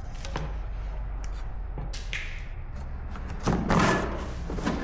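Objects being handled and set down: scattered clicks and knocks, then a louder clattering thud about three and a half seconds in, over a steady low hum.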